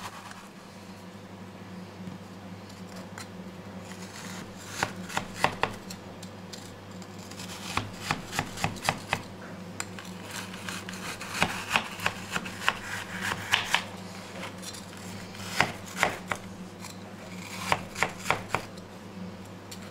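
Kitchen knife cutting a frozen slab of homemade vegetable bouillon into cubes on a cutting board. Short clusters of sharp crunches and taps come every few seconds as the blade goes through, over a steady low hum.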